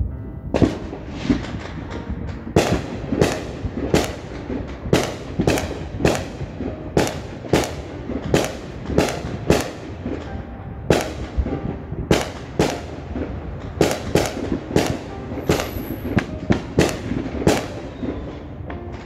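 Fireworks going off: a long series of sharp bangs and pops, about two a second, one after another.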